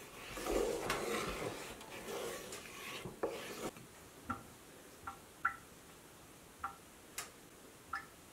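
A wooden spatula stirring and scraping thick gravy in a Lodge cast-iron skillet for about three seconds. After that come soft, short chime-like pings, one every second or so.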